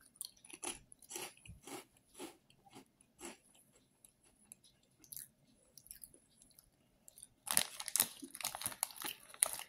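Crisp barbecue-flavored puffed snack being bitten and chewed, a few crunches a second that fade over the first few seconds. Near the end a louder crackly rustle as the plastic snack packet is handled.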